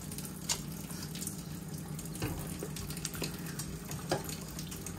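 Kitchen faucet running steadily into a stainless steel sink, with a few light knocks in the sink.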